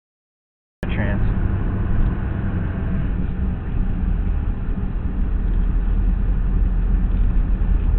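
Steady low road and engine rumble inside a moving car, picked up by a dashcam's microphone, starting abruptly about a second in after silence.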